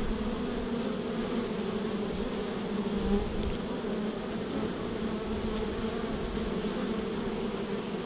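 Many honey bees buzzing together at a hive entrance: a steady, even hum.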